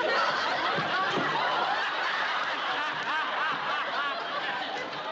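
Studio audience laughing, a loud swell of many voices that breaks out at once and carries on.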